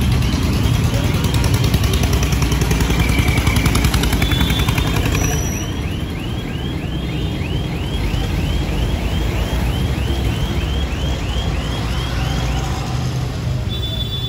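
Motor vehicle on the move: a steady low rumble of engine and road, with a rapid repeating high chirp, about three or four a second, that stops near the end.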